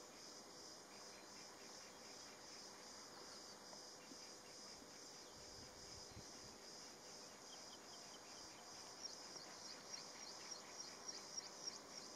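A cricket chirping faintly with a steady, evenly pulsed high trill. Near the end comes a run of short, sharp high chirps, louder than the trill.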